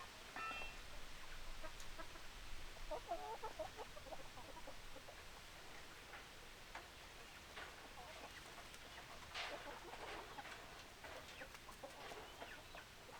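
Chickens clucking in short scattered calls, with a brief higher-pitched call at the start and a run of low clucks a few seconds in.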